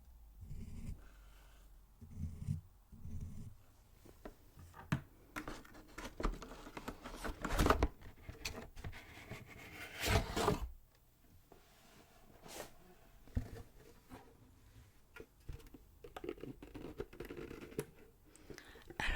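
Close-miked ASMR handling of objects and packaging: scattered taps and clicks with scratching and rustling, the loudest rustles about seven and ten seconds in.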